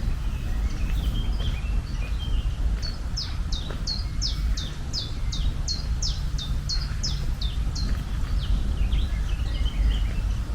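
A songbird repeating a quick run of falling high notes, about two to three a second for several seconds in the middle, with other scattered chirps around it, over a steady low rumble.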